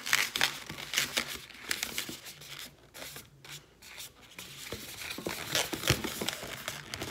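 Inflated twisting balloons being handled and twisted into a pinch twist: irregular rubbing and crackling sounds, easing off for a second or two midway.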